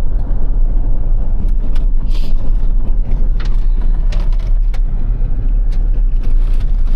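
Pickup truck driving on the road: a steady low rumble of road and engine noise, with a few light clicks and rattles.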